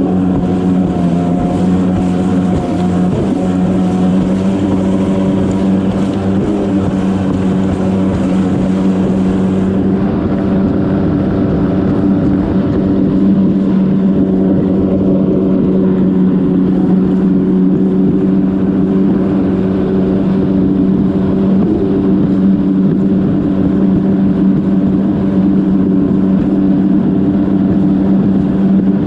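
Yamaha WaveRunner jet ski's engine running at a steady speed, with the hiss of water under the hull; the high hiss drops away about ten seconds in while the engine note holds.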